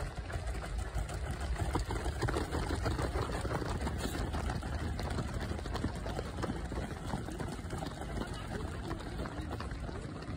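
Footsteps of a large pack of runners passing on a synthetic running track, many quick overlapping footfalls, loudest about two seconds in, over a steady rumble of wind on the microphone.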